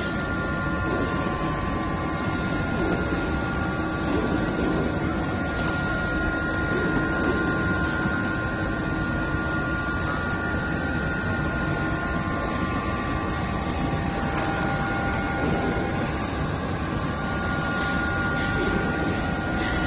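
Forklift hydraulics running steadily with a high whine while the rotating multi-purpose clamp attachment turns on the mast.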